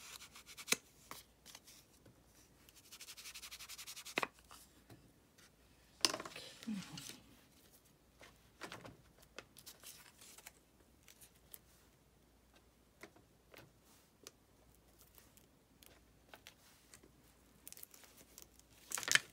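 Quiet paper-crafting sounds: a foam ink blending tool rubbed and dabbed along the edges of a kraft-paper tag, with paper rustling and scattered light clicks and taps. There is a short run of quick, even scrubbing strokes about three seconds in, and a louder rustle near the end.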